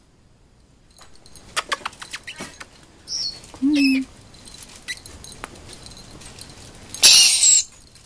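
Lory parrots on a perch: a run of sharp clicks and rattles, a short high chirp about three seconds in, then a loud harsh lory screech near the end.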